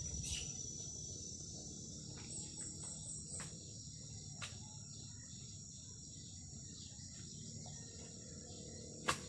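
Insects chirring in a steady high-pitched drone, with a few sharp knocks scattered through it and the loudest near the end.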